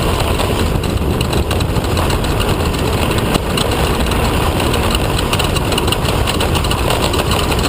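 Off-road race vehicle's engine running steadily, with a dense clatter of short knocks and rattles over it.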